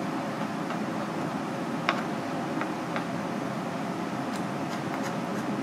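Steady background hum like a fan or air conditioning, with a faint steady tone, and a few light clicks and taps, the sharpest about two seconds in and several more near the end.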